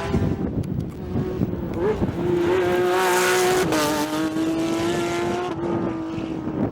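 Rally car engine running hard at high revs, its pitch holding fairly steady, with a brief dip about two seconds in and a small step down about two thirds of the way through. A rush of noise swells around the middle.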